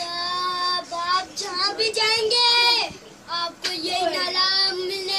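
A young boy singing in a high voice, holding drawn-out notes that rise and fall, with a short break about three seconds in.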